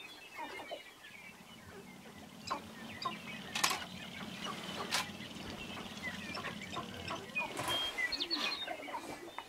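Sharp-tailed grouse displaying: a scatter of short clucks and chirping calls with two sharper pops, over a low steady buzz that stops about seven and a half seconds in.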